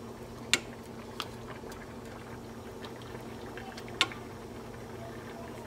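Spatula stirring thick Alfredo sauce in a skillet, with three sharp clacks of the spatula against the pan: about half a second in, a little after a second, and about four seconds in. Underneath is a steady hiss and low hum.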